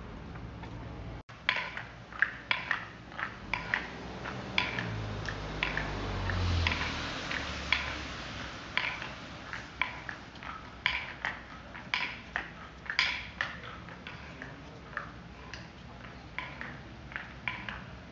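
Footsteps of wooden geta sandals clacking on a paved street, a quick uneven run of sharp clacks from more than one walker. A car passes with a low rumble around five to eight seconds in.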